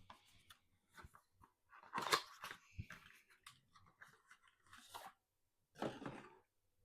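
Cardboard and plastic packaging being handled: soft rustles and small clicks, with two louder crinkling scuffs about two seconds in and again near the end.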